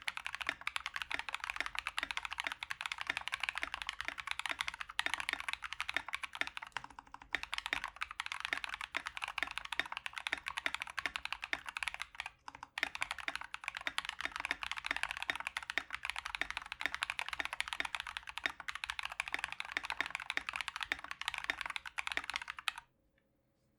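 Fast, continuous typing on an Epomaker GK61XS 60% mechanical keyboard with lubed, filmed Glorious Panda 67g tactile switches and PBT keycaps. The typing breaks off briefly about halfway and stops about a second before the end.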